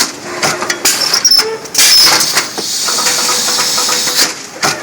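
CNC amorphous core cutting machine running its cutting cycle: stretches of hiss that come and go, with clicks, knocks and short high squeaks between them.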